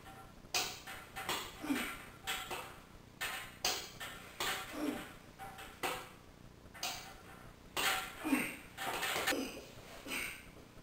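Lat pulldown machine clinking and rattling with each rep: weight-stack plates and cable hardware knocking about once a second, some knocks ringing briefly.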